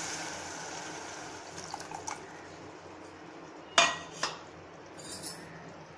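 Tamarind water poured from a stainless-steel bowl into a steel pot of hot fried onion masala, with a fading sizzle, then two sharp clinks of steel dishes about four seconds in.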